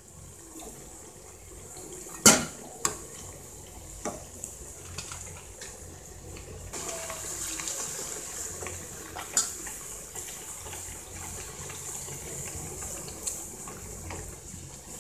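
Ragi burelu deep-frying in hot oil, a steady sizzle as they puff up in well-heated oil. A metal spoon knocks against the pan several times, loudest about two seconds in.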